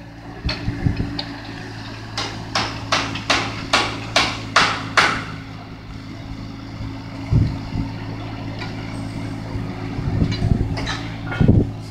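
Doosan mini excavator's diesel engine running steadily as it digs earth and rubble. Over it comes a quick run of about nine sharp knocks, roughly three a second, then a few dull thuds near the end.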